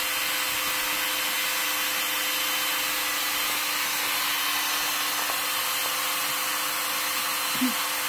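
Corded electric drill running steadily with its trigger locked on, driving a drill-powered water pump. A brief sound comes near the end.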